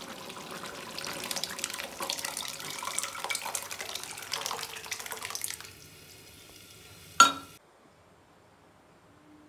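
Dark liquid and leaves poured from one pot into a large pot of pork curry: a splashing, crackly pour for about five and a half seconds. A short sharp knock follows about seven seconds in.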